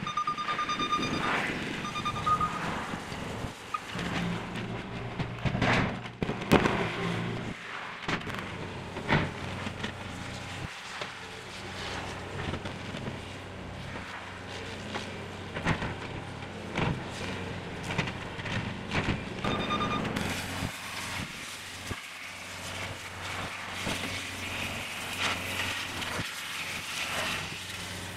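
Heavy machinery running at a demolition site, with scattered sharp metal knocks and clanks. A vehicle's reversing alarm beeps briefly near the start and again about two-thirds of the way in.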